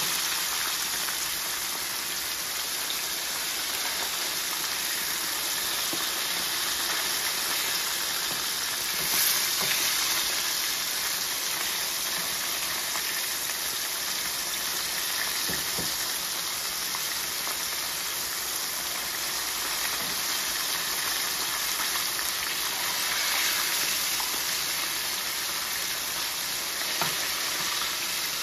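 Small fish frying in hot oil in a saucepan: a steady sizzle. A wooden spoon gives a few light knocks as the pieces are moved about.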